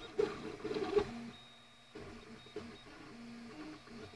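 Flashforge Creator (AX1058) 3D printer's stepper motors running mid-print: a busy flurry of short pitched tones for about the first second, then quieter, with brief held tones that change pitch as the print head moves.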